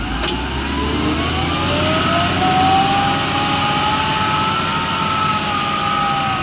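Excavator's diesel engine running under load, its pitch rising over the first couple of seconds, then holding fairly steady with a slight waver.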